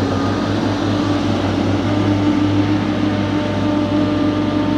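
Diesel engines of a tracked dangle-head log processor and a wheeled grapple machine running under load, a steady low hum with faint steady whining tones above it.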